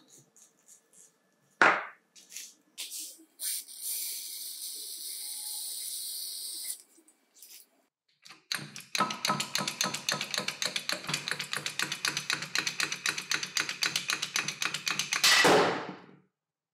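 A brief knock, then a steady hiss for about three seconds. After that comes a fast, even run of mechanical hammering, about eight blows a second, lasting around seven seconds and stopping abruptly: a power impact tool driving through a socket to work loose the impact driver's front housing, which is clamped in a vise.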